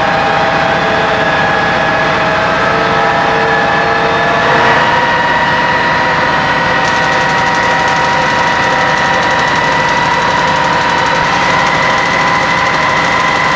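Rolls-Royce Olympus turbojet being turned over by its starter: a loud, steady whine with several held tones that step up in pitch about four and a half seconds in. From about seven seconds in, the rapid zapping of the high-energy ignitors joins it, the ignition stage before fuel is let in.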